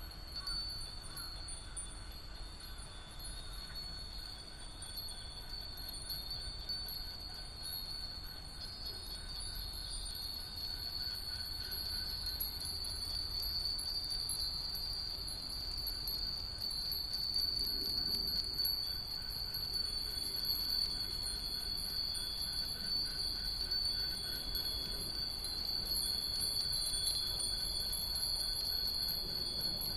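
Hundreds of Japanese fūrin wind bells hung on lines, tinkling together in the breeze in a continuous shimmer of high ringing tones. The ringing grows a little louder after the first third.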